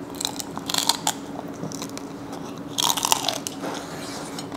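Cooked crab shell crunching and cracking as it is broken apart and eaten, in two short clusters of crackles, about a second in and again about three seconds in.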